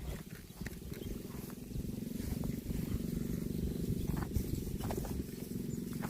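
Cattle making a low, continuous rumbling sound, with scattered soft clicks.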